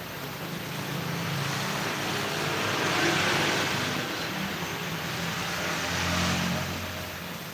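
Road traffic passing by: a broad vehicle noise that swells about three seconds in and again near six seconds, with a low engine hum near the end.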